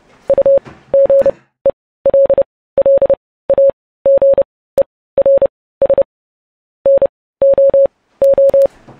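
Morse code (CW): one steady beep tone keyed on and off in short and long beeps, grouped into letters with brief gaps between them and one longer pause about two-thirds of the way through.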